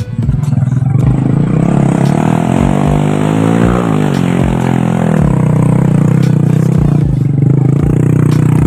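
Motorcycle engine straining under load on a steep climb. Its revs rise for about four seconds, drop back, then hold steady, over a low clatter of knocks.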